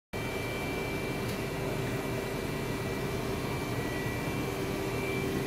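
Steady hum of a Trumpf TruBend 3180 CNC press brake standing powered up with its hydraulic pump running, carrying a few constant tones and no strokes of the ram.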